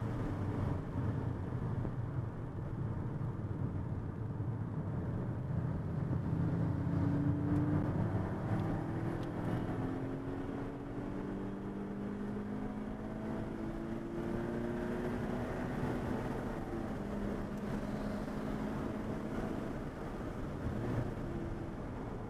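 Car engine heard from inside the cabin while lapping a race circuit, its pitch repeatedly climbing under acceleration and dropping again through shifts and corners, over steady road and tyre noise.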